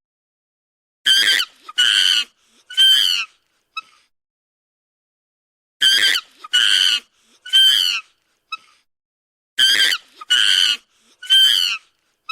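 An animal giving high-pitched calls, each falling a little in pitch, in three groups of three about four seconds apart, with silence between the groups.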